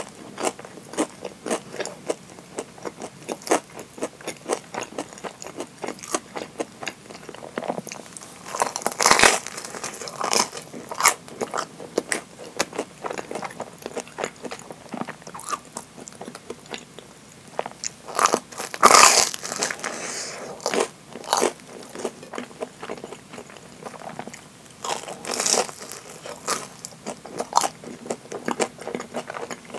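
Close-miked bites and chewing of deep-fried Japanese curry bread with a crisp breadcrumb crust: three loud crunching bites spread through, with a steady run of small crisp crunches from chewing in between.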